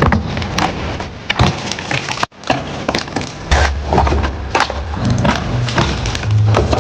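Irregular knocks, clacks and thuds of a Land Cruiser's interior trim and panels being pried out and handled as the cab is stripped. The sound drops out suddenly for a moment a little over two seconds in.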